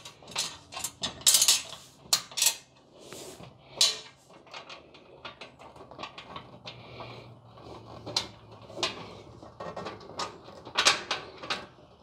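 Irregular metallic clinks, taps and rattles of steel pickup-bed sheet-metal parts and bolts being handled while the front bed rail is bolted to the header panel, with a louder clatter about a second in.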